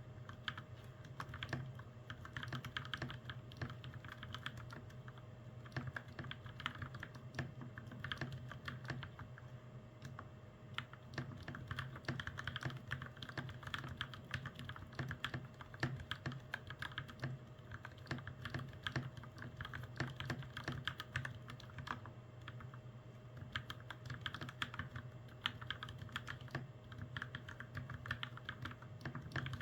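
Continuous typing on a custom mechanical keyboard fitted with lubed Gateron Milky Yellow Pro switches and PBT keycaps. The keystrokes come in a steady stream of fast clacks, with brief pauses now and then.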